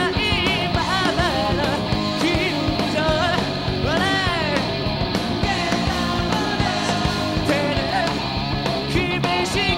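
Rock band playing live: a vocalist singing over electric guitar and drums in an up-tempo pop-punk song.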